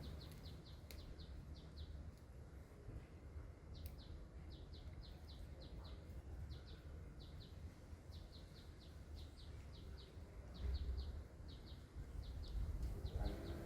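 Faint high chirps in quick groups of three to five, repeating about once a second, over a steady low rumble.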